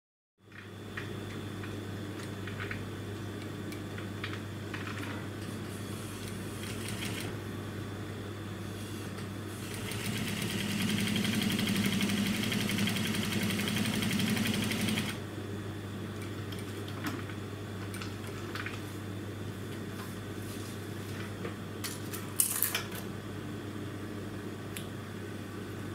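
Juki industrial sewing machine stitching for about five seconds, starting about ten seconds in, running a seam along a synthetic-leather pocket welt. A steady low hum runs underneath. Small handling clicks and rustles come before and after, with one sharp tap near the end.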